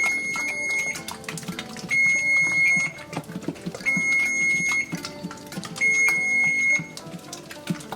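Electronic beeping: four long, high, steady beeps about two seconds apart, over background music.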